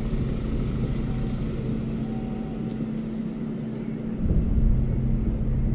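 An engine running with a steady low hum and rumble, which grows louder about four seconds in.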